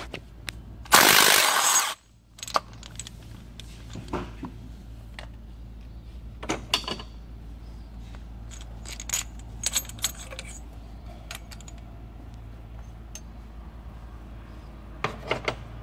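Metal clinks and taps as the steel injector cup installation tool is worked loose and lifted out of the injector bore in a Volvo D13 cylinder head, after a loud burst of about a second near the start, over a steady low hum.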